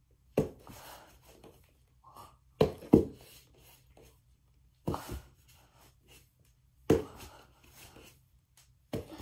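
A child's feet thumping down on the floor as she kicks up into handstands and drops back, about every two seconds, with a double thump about three seconds in.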